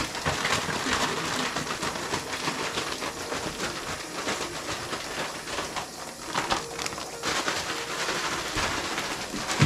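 Plastic zip-lock bag being shaken hard by hand to mix a wet food mix, rustling and crinkling steadily throughout.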